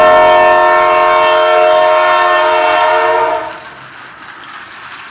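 Toy bullet train's electronic horn sounding one steady, loud chord for about three and a half seconds. It then cuts off, leaving only the quieter running of the toy's motor and wheels on the plastic track.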